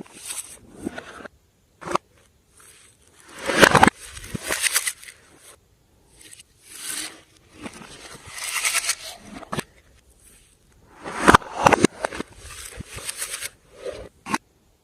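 Slime being worked by hand, squished, stretched and pressed, giving irregular bursts of sticky crackling and popping with short pauses between, the loudest bursts about four seconds in and again near eleven seconds.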